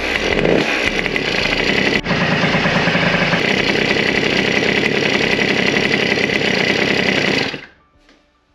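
Minarelli AM6 50cc two-stroke single-cylinder engine running on a newly fitted MVT Digital Direct DD12 ignition. It takes a couple of quick revs at first, then runs steadily, and cuts off suddenly about seven and a half seconds in.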